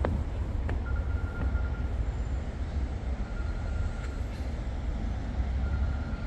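Outdoor ambience with a steady low rumble, a few sharp ticks, and a short high-pitched tone held for about a second that comes three times.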